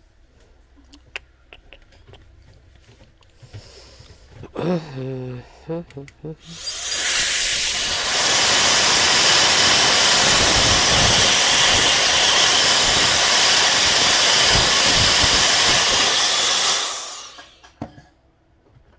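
Small handheld electric blower running flat out for about ten seconds: a loud, steady rush of air that spins up quickly about six seconds in and winds down near the end.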